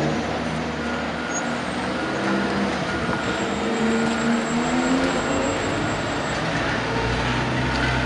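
Heavy diesel traffic: a Freightliner fire engine's Detroit Diesel 6V92 pulling away, its engine note rising as it accelerates. A heavy truck's deep rumble comes in close by near the end.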